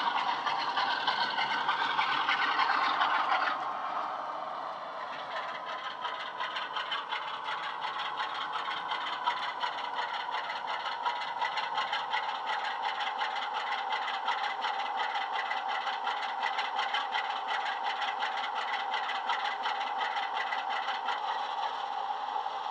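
Bachmann OO-gauge Class 47 model's DCC sound decoder playing a recording of a real ETH-fitted Class 47 diesel engine through the model's standard speaker, running steadily as the locomotive moves slowly, with a fast, even clatter. The sound is louder for the first three or four seconds, then drops and carries on evenly.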